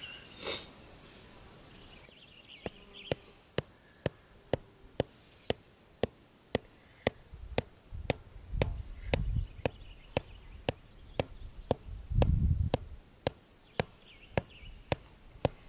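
32 oz rubber mallet striking the head of a 12-inch steel tent stake, driving it into hard, compacted dirt: a steady run of sharp knocks about two a second, starting a few seconds in. A low rumble comes and goes twice in the middle.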